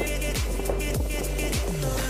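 Background music with a steady beat: deep bass drum hits that drop in pitch, about two to three a second, over held bass notes and light ticking cymbals.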